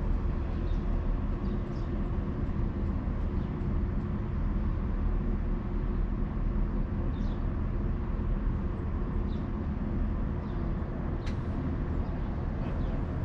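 Steady low vehicle engine and road rumble, unchanging in level, with a faint sharp tick about eleven seconds in.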